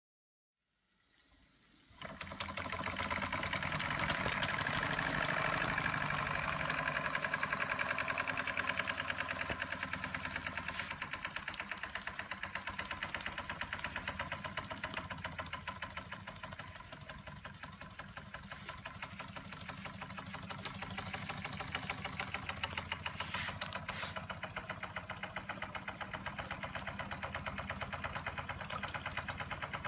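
Carette Model 175 twin oscillating-cylinder toy steam engine running steadily under steam, with a fast, even ticking beat. It comes in about half a second in and builds over the next two seconds.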